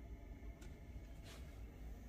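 Faint low rumble of a small enclosed space, with two soft clicks a little under a second apart.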